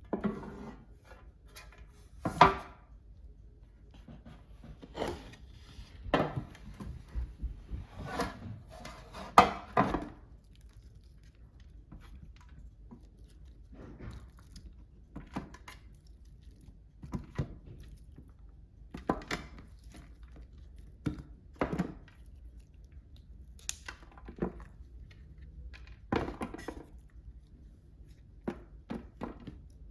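Kitchen handling noises: irregular knocks and clatter of dishes and utensils, a few seconds apart, with two louder knocks in the first ten seconds.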